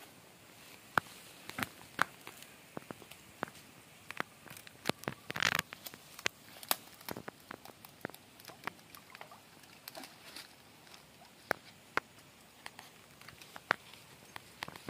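Handling and movement noise at the water's edge: scattered sharp clicks and taps with rustling of leafy plants, and one longer rush of noise about five and a half seconds in, as a man crouches, reaches into the stream and steps over rocks.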